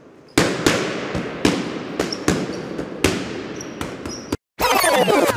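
Heavy footsteps echoing in a cave, about two or three irregular thuds a second. Near the end a louder rushing noise sweeps down in pitch and cuts off suddenly.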